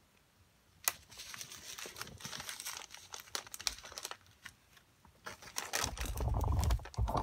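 Small plastic bags of square diamond-painting drills crinkling and rustling as they are handled and shuffled, with a sharp click just under a second in and heavier, lower handling noise near the end.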